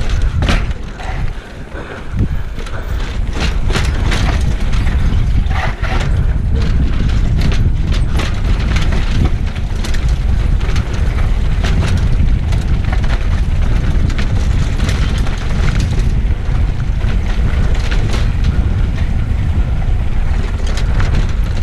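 Mountain bike rattling over cobblestones at speed, a constant stream of knocks and jolts from the frame and wheels, under heavy wind rumble on the handlebar camera's microphone.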